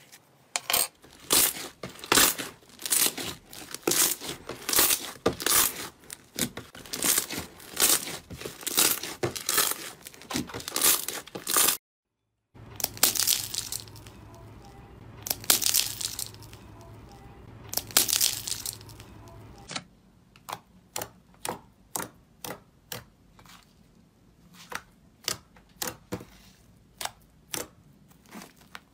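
Slime being handled, in three parts. First rapid crisp clicks as foamy slime is pressed with a wooden spoon. After a short cut, crunching, tearing crackles as a slime with a hardened, cracking coating is squeezed by hand. Last, slower separate sticky pops, about one or two a second, as a glossy slime is poked and folded.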